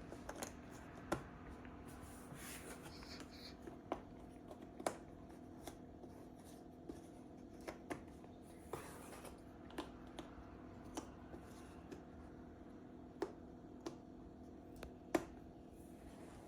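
Cardboard jigsaw puzzle pieces being handled, with scattered sharp clicks and taps at irregular intervals over a steady low hum.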